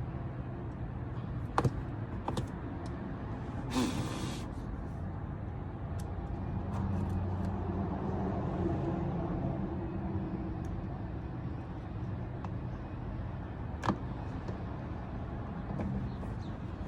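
Steady low hum of an idling vehicle engine, with a few sharp clicks of parts being handled and a brief rustle about four seconds in.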